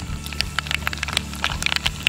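Mustard seeds crackling in hot sesame oil in a clay pot: sharp, irregular pops that come more often toward the end.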